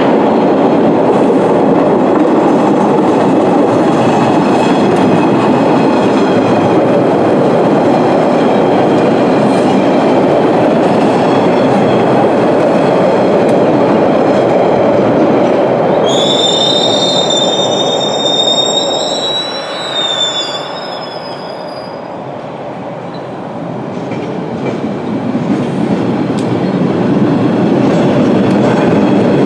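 MBTA subway trains running on the track, a steady rumble. From about halfway to two-thirds through there is a high wheel squeal lasting a few seconds. The noise then dips and builds again as another train approaches.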